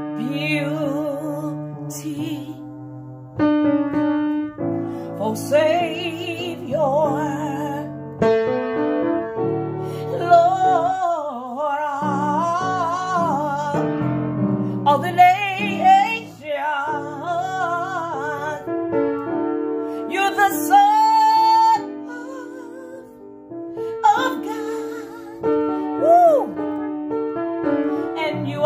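A woman singing a slow gospel praise melody with a wavering vibrato, accompanying herself with sustained chords on the piano.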